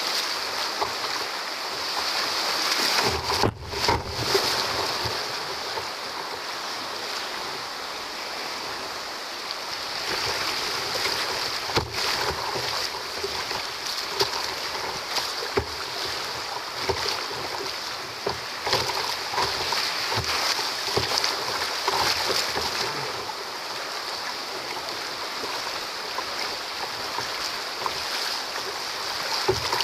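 Whitewater rapids rushing in high water after heavy rain, with waves splashing around the bow of a kayak. There is a sharp knock about twelve seconds in.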